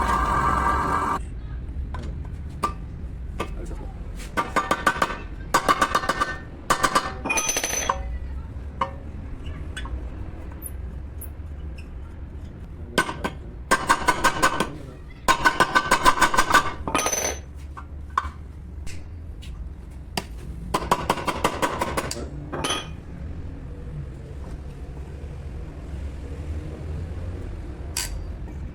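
An air tool hammering in about six short bursts of rapid strikes, with light metallic clinks between them.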